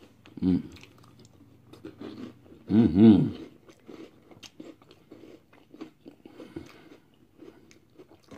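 Close-up chewing and crunching of a mouthful of Pop-Tarts cereal in milk, a run of small irregular crunches. Two short voiced sounds from the eater break in about half a second and three seconds in, the second the loudest.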